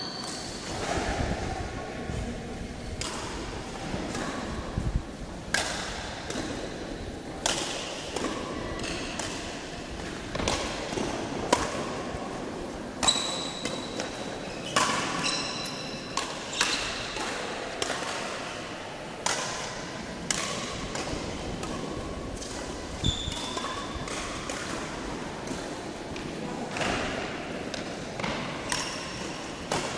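Badminton rally: sharp racket strikes on the shuttlecock, irregularly about a second apart, mixed with short high squeaks of shoes on the court floor.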